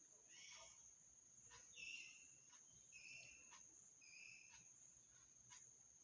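Near silence: faint room tone with a steady high-pitched whine and a few faint short chirps about two, three and four seconds in.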